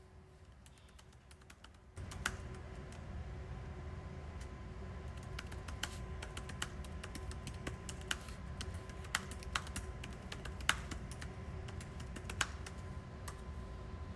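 Typing on a computer keyboard: irregular key clicks, some louder than others, over a steady low hum that comes up about two seconds in.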